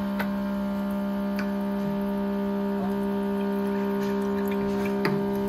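Steady electrical hum with a few faint clicks.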